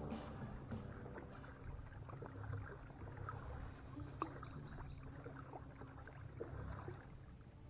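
Water lapping and trickling against a kayak's hull, over a steady low rumble, with a few light ticks and knocks.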